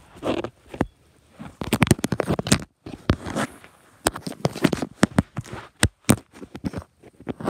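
A phone being picked up and moved about right at its microphone: rubbing and scraping, with a string of sharp knocks and clicks.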